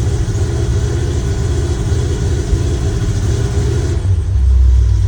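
Chevrolet C10 pickup engine, running on a Holley Sniper EFI, brought up in RPM and missing. The engine gets louder and deeper near the end. The miss is traced to a loose distributor pickup sensor rattling against the reluctor wheel.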